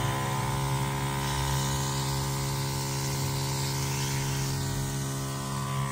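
Battery-powered knapsack sprayer's pump motor running with a steady buzzing hum, while the wand nozzle hisses out a fine mist.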